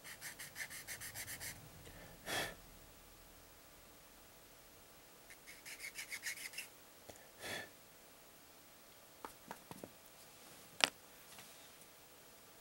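A plastic model-kit part being rubbed with an abrasive in two quick runs of back-and-forth strokes, about eight a second, each run followed by a short breathy whoosh. Then a few light plastic clicks and one sharper click near the end.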